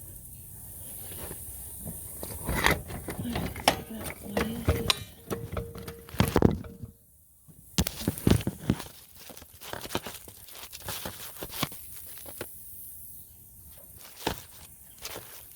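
Irregular knocks, clicks and scrapes of hand work on a lawn tractor's front wheel assembly: the wheel, bushing and washers being handled and fitted on the axle spindle.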